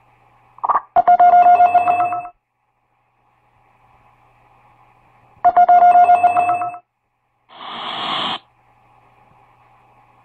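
Telephone bell ringing twice, each ring a rapid rattling trill lasting just over a second, with a pause of about three seconds between rings. A short burst of hiss follows near the end, over a faint steady hum.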